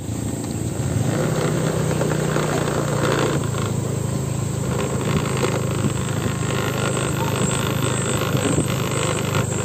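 A motor engine running with a steady low hum over outdoor traffic noise.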